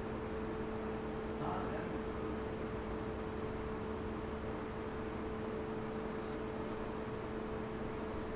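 Steady electrical hum with two constant low tones over a hiss, from powered-up lab equipment, with a faint brief blip about a second and a half in and a short high hiss near the end. The hum holds steady while the robot arm moves.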